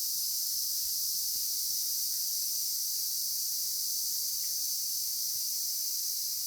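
Steady, unbroken chorus of insects, likely crickets, making a dense high-pitched shrill that does not let up.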